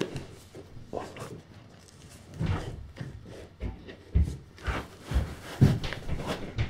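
A laceless New Balance Tekela V4 Pro football boot being tugged on over a sock: fabric rubbing and rustling from the knit collar, with a few soft thumps about four to six seconds in as the foot is worked into the boot.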